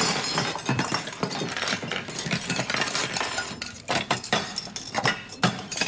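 Glassware and dishes clattering and clinking on a metal tray. A busy rattle fades over the first few seconds, then comes a handful of separate sharp clinks.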